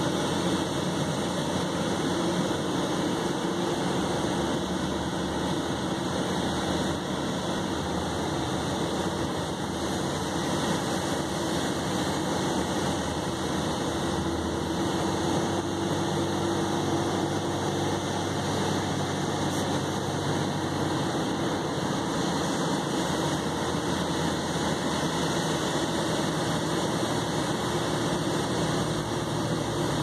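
Steady engine and tyre noise of a vehicle driving along packed beach sand.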